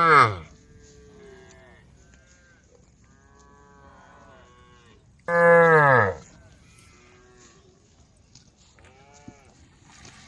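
Cows mooing: a loud moo tails off just after the start, dropping in pitch, and a second loud moo comes about five seconds in, its pitch falling at the end. Fainter moos from other cows in the herd come in between and near the end.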